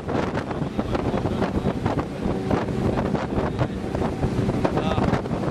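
Rigid inflatable boat running at speed: wind buffets the microphone over the rush of the wake, with a steady engine drone underneath.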